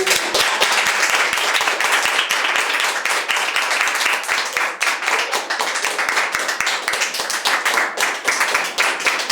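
Audience applauding: sustained, dense clapping from many hands.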